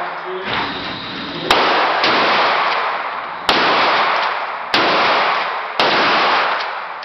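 Four gunshots fired at uneven intervals of one to two seconds, each followed by a long echoing decay.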